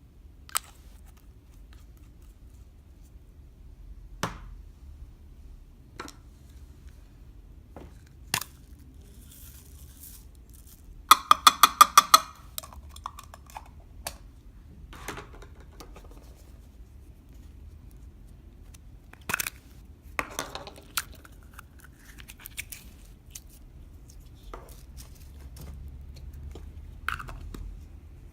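Scattered sharp clicks and taps of small hard objects being handled, with a quick run of about eight loud clicks a little past halfway. Softer rustling and scraping fall in between.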